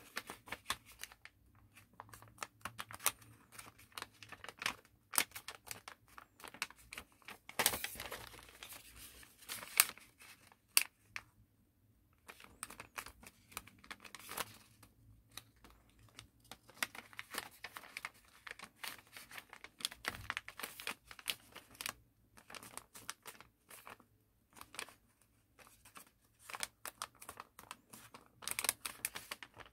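Origami paper being folded and creased by hand: irregular crinkling and rustling with sharp little crackles, broken by a few short pauses.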